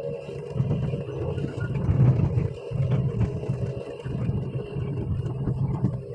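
Hydraulic excavator's diesel engine running under working load, heard from the operator's cab, its low hum swelling and easing as the bucket is moved.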